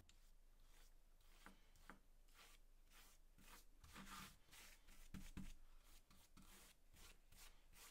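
Faint, repeated scratchy strokes of a bristle paintbrush dragged over plywood, brushing on India ink.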